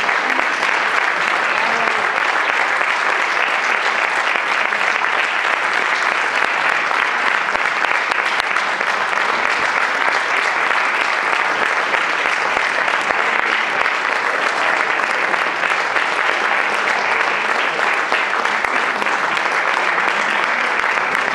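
Audience applause: many people clapping, steady and dense, without a break.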